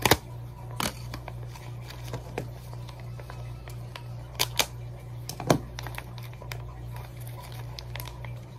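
Plastic parts bag being handled and cut open with a pocketknife: crinkling with several sharp crackles and snaps, the loudest right at the start and about five and a half seconds in. A steady low hum runs underneath.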